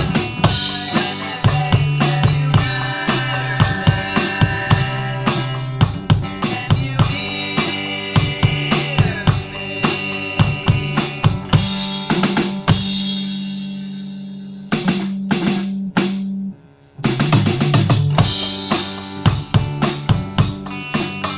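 A drum kit playing a steady beat along with a song, with sustained chords and a low bass note under the strikes. About 15 s in the beat gives way to four single accent hits that ring out, then stops for an instant before the full beat comes back in.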